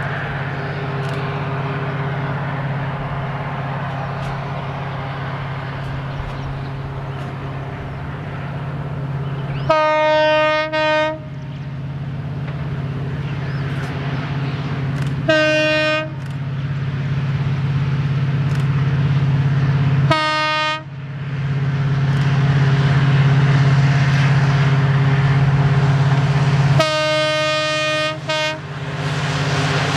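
Indian Railways diesel locomotive hauling a passenger train. Its engine runs with a steady low drone that grows louder as the train approaches, and its horn sounds four times: a blast of about a second and a half, two short toots, then a longer blast near the end that breaks briefly before stopping.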